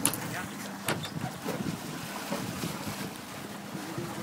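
Wind on the microphone and water sloshing against a boat's hull while a sailfish is held alongside for release, under a faint steady hum from the idling outboard motor. A couple of sharp knocks and splashes come in the first second.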